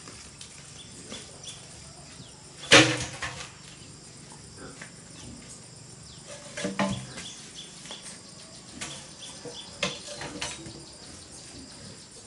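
Green bamboo poles being set down and handled on a pile. A loud clatter of poles landing about three seconds in, then lighter knocks of bamboo against bamboo around seven seconds and again near ten seconds.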